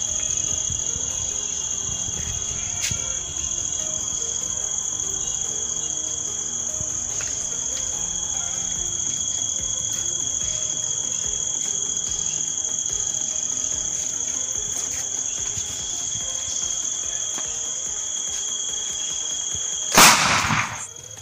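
Crickets chirping steadily as a high, even trill. About a second before the end, a homemade plastic-bottle bomb packed with matchstick-head powder goes off in one sudden loud burst lasting under a second.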